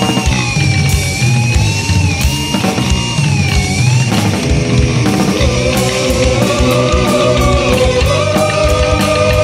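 Instrumental passage of a heavy metal song: dense drum hits and band under a held lead melody that bends up and down, moving to a new line of held notes about five seconds in.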